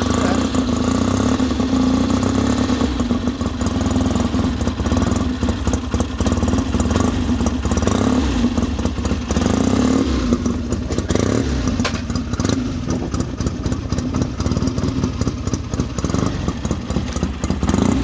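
Freshly rebuilt 1974 Triumph T120V Bonneville's 650 cc parallel-twin engine running steadily, revs swelling slightly now and then. It is on its second run after the rebuild, its carburettor air screws set 1½ turns out after a lumpy first run with the left cylinder lean and the right a bit rich.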